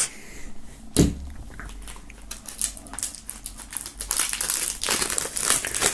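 Plastic shrink-wrap being slit with a knife and peeled off a CD digipak: a run of crinkling and crackling as the wrap is pulled away, with one sharp tap about a second in.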